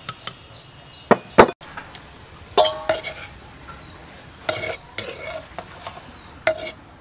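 Metal spoon knocking and scraping against a stainless steel bowl as paste is tapped off it: several sharp clinks, some with a short metallic ring, spaced a second or two apart.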